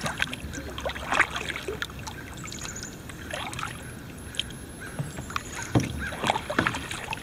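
Double-bladed kayak paddle stroking through river water: the blades dip and pull with splashes and drips at irregular intervals, over a soft steady wash of moving water.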